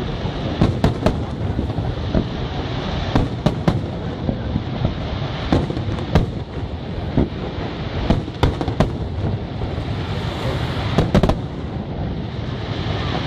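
Aerial fireworks shells bursting in quick, irregular succession, sharp bangs one after another over a continuous low rumble and crackle from the display.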